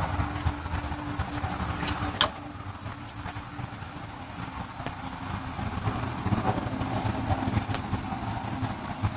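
A vehicle engine running with a steady low rumble and hum. Three sharp clicks cut through it, the loudest about two seconds in.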